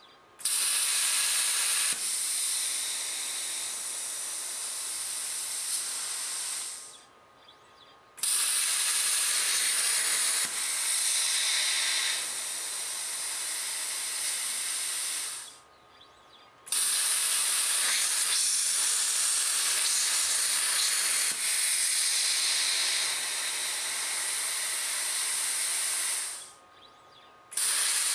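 Compressed air hissing through a CUT50 plasma cutter's torch in three long stretches of about seven seconds each, with short pauses between.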